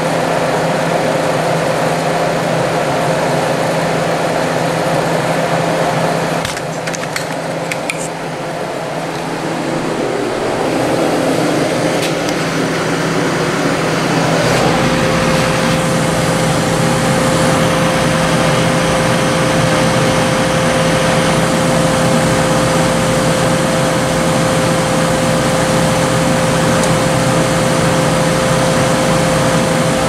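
Hampton Bay BHDH2500AS1 dehumidifier running normally: a steady, loud fan whir over the quiet hum of its reciprocating compressor. A steady tone in the hum comes forward and the sound gets a little louder about halfway through.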